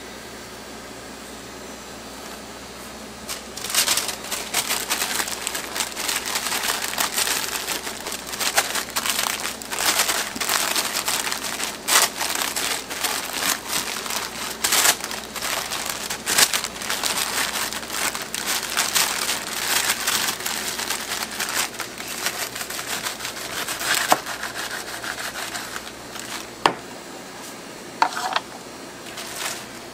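Paper crinkling and rustling as a translucent paper sheet is rolled and pressed by hand around a cotton candy burrito. It starts about three and a half seconds in and runs dense with sharp crackles, then thins to a few separate clicks near the end.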